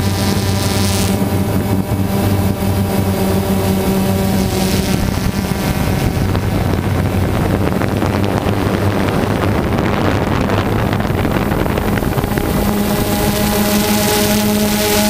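Multirotor drone's motors and propellers humming steadily, with wind noise on the microphone; the pitch of the hum shifts about a second in, around five seconds in and again near the end as the motors change speed.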